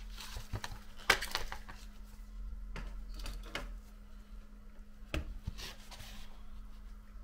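A few scattered light clicks and taps with some rubbing as small phone parts and tools are handled on the workbench, over a steady low hum.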